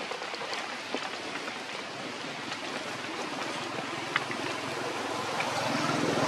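Steady outdoor rushing noise, like running water or wind, with a few faint clicks.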